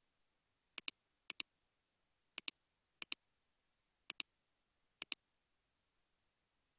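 Computer mouse button clicked six times, each click a quick double tick of press and release, spaced unevenly half a second to a second apart.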